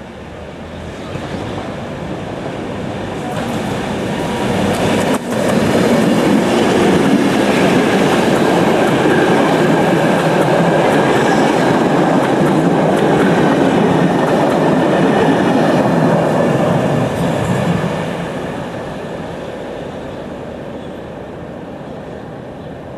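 SNCB train passing close by: the sound builds over the first few seconds, holds loud for about ten seconds, then fades away as it recedes.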